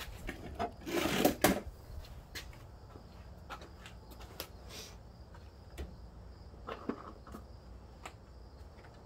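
Light handling noises: scattered clicks and knocks, with a short rustling, scraping burst about a second in. The mower engine is not running.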